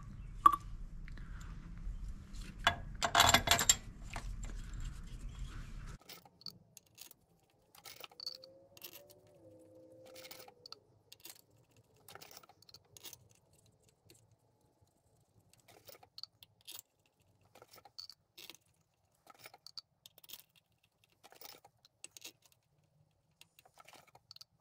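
Steel cylinder head bolts clinking and tapping as they are handled and dropped into their holes in the cylinder head: a scattered string of light metallic clicks, with a louder clatter about three seconds in. A low steady hum runs underneath and cuts off about six seconds in.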